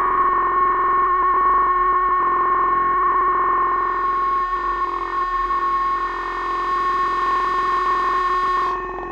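Behringer Neutron analog synthesizer holding a steady, distorted drone on one pitch; its upper overtones open out about four seconds in, and it dips slightly near the end.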